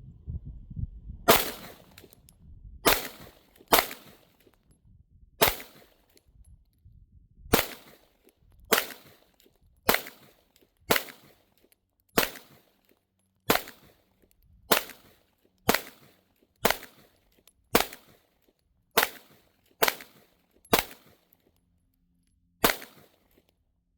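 Sig Sauer P365 9mm pistol fired in a string of about eighteen shots, roughly one a second with uneven gaps, the first about a second in, in an appendix-draw shooting drill.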